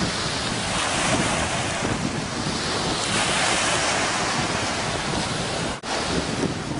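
Ocean surf washing ashore with wind buffeting the microphone, a steady loud rush that cuts out for an instant near the end.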